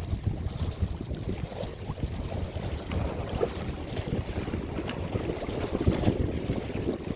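Strong wind buffeting the microphone: a low, gusting rumble that rises and falls, with a few faint clicks.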